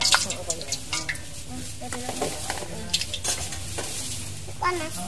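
Spinach leaves frying in a pan of hot oil: a steady sizzle with many small crackles.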